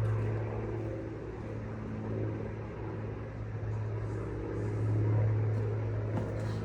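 Steady low mechanical hum, like a motor or engine running, that swells slightly about five seconds in.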